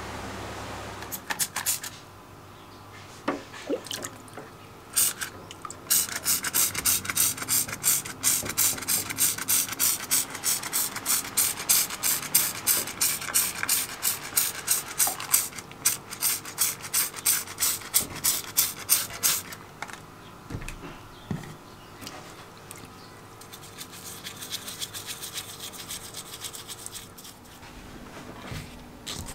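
A cordless drill whirs briefly at the start, spinning a drill motor armature. Then a hand trigger spray bottle squirts liquid over aluminium drill housing parts in a metal tray, in a long even run of quick hissy squirts, about three a second.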